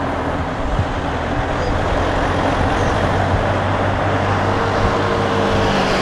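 Steady engine and road noise heard from inside an open-sided passenger truck as it drives through city traffic.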